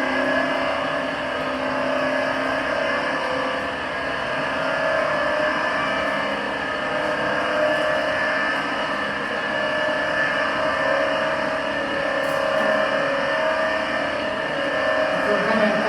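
Hand-cranked shelter ventilation fan running, a terrible noise: a loud, steady mechanical din with several held tones that swell and ease slightly every few seconds as it is cranked.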